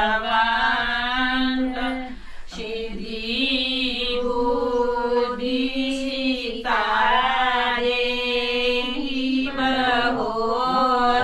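Women singers (gidaar) singing a traditional Kumaoni auspicious wedding song in slow, long-held notes that glide in pitch, pausing briefly for breath about two seconds in and again after about six and a half seconds.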